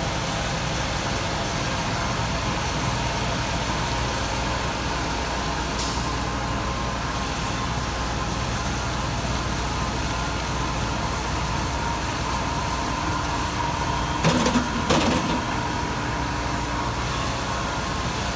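A large vehicle's engine running steadily, with a brief louder surge about fourteen seconds in.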